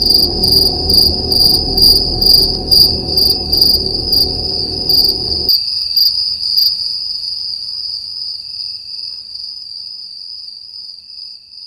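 Insects chirping: a steady high trill pulsing about two to three times a second, over a low background hum that stops about five and a half seconds in. The trill then fades out slowly.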